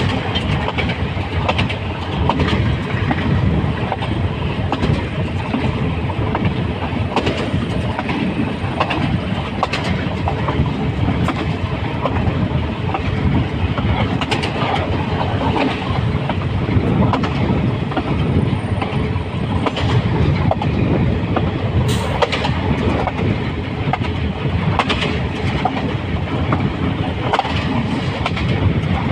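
Locomotive running along the track at speed: a steady rumble of engine and wheels on rails, broken by irregular clicks and knocks as the wheels pass over rail joints, one sharp knock about two-thirds of the way through.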